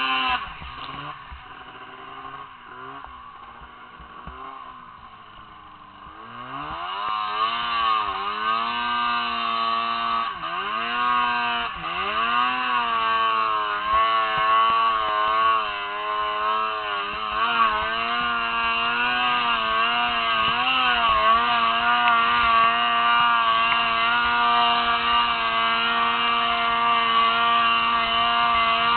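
Arctic Cat M1000 snowmobile's two-stroke engine heard from on the sled, revving up and down at first. From about six and a half seconds in it gets louder and is held at high revs under load on the climb, dipping briefly in pitch a few times as the throttle eases, then running high and steady.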